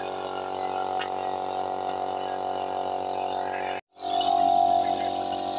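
Small portable electric air compressor running steadily as it pumps air into a tractor tyre. It drops out for an instant about four seconds in, then carries on.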